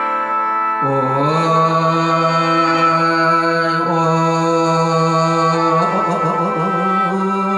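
Live mor lam music in the Kalasin lam melody style: a long held melody line that slides up into its note about a second in and changes pitch around six seconds in, over a steady high drone.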